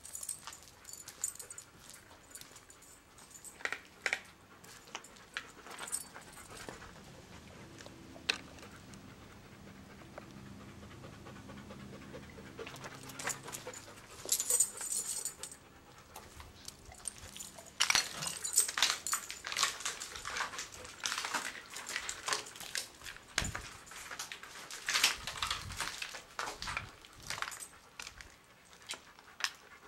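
A dog panting rapidly, mixed with crunching footsteps on a rubble-strewn floor.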